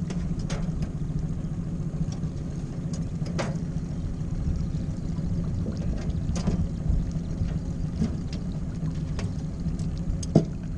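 Suzuki DF20A four-stroke outboard motor running steadily, pushing a small aluminium boat along. A few light knocks come through, the sharpest near the end.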